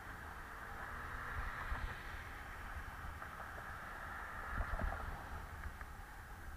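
Steady wind and road rumble picked up by a bicycle-mounted camera while riding on pavement, with a few short low thumps from bumps in the road, one early on and a cluster about two-thirds through.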